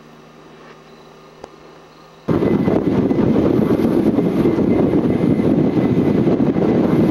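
A faint steady hum, then a sudden cut about two seconds in to the loud, even rushing of a fast-flowing river.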